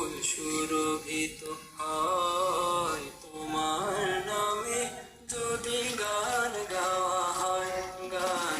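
A nasheed sung in long held, gliding notes, phrase after phrase with short breaths between.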